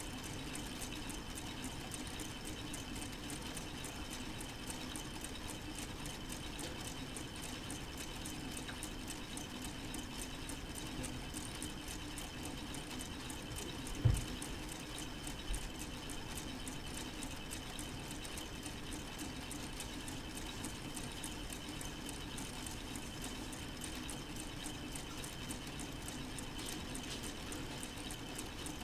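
Solar-powered K'nex model four-cylinder engine running steadily, its plastic gears and moving parts making a fast, light clicking over a steady hum. Two low thumps about halfway through, a second and a half apart.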